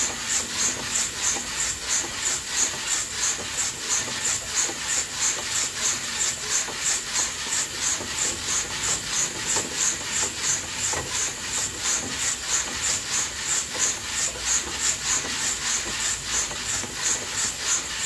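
Coffee beans roasting in an old-fashioned turned coffee roaster, the beans swishing and scraping inside with a steady hiss, in an even rhythm of about three pulses a second as it turns.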